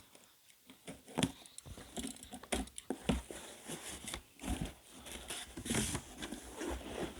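Packaging being handled and opened by hand: irregular taps, scrapes and crinkles of cardboard and plastic.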